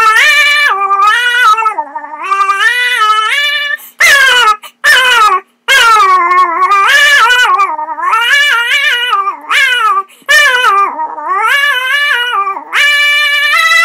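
A person making weird noises with the mouth: a sustained high-pitched wail whose pitch steps and slides up and down like a tune. It comes in several long phrases with short breaks between them.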